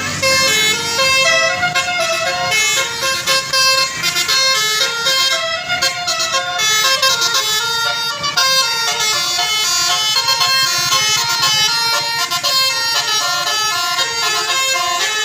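Basuri telolet multi-tone air horn on a bus playing a quick melody, its pitched notes stepping up and down one after another with several trumpets sounding together.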